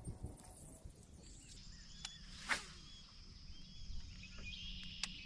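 Lakeside ambience with birds chirping and a steady high hiss, broken by one sharp splash about two and a half seconds in: a cast fishing lure landing on the water.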